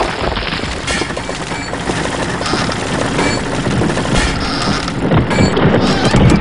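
A dense rumbling, crackling noise full of rapid clicks starts abruptly and swells gradually louder.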